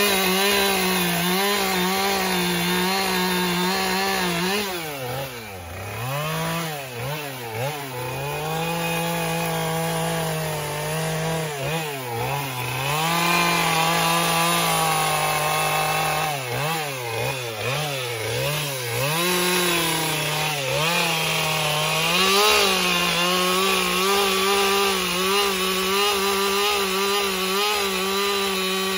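Two-stroke chainsaw running at high revs while carving into a wooden log. The engine speed drops and climbs back several times about 5 to 8 seconds in and again around 16 to 20 seconds in, as the throttle is eased and reopened while cutting.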